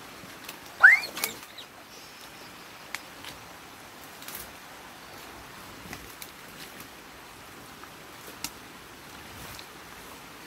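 Sticks and brush of a beaver dam crackling and snapping now and then as a rake pulls at them in shallow water. About a second in there is one short, loud squeal that rises sharply in pitch.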